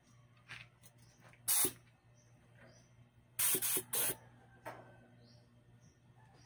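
Several short blasts of compressed air from a blow gun fed by a homemade silent air compressor, the loudest about a second and a half in and a pair around three and a half to four seconds, over the compressor's low steady hum.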